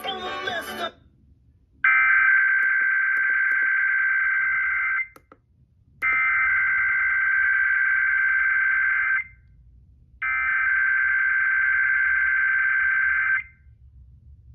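Emergency Alert System SAME header data bursts heard over an FM radio: three identical buzzy, warbling digital bursts of about three seconds each, a second apart. They open an IPAWS required weekly test.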